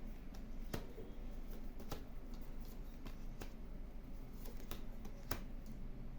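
Faint, scattered clicks and light taps of tarot cards being handled, over a low steady room hum.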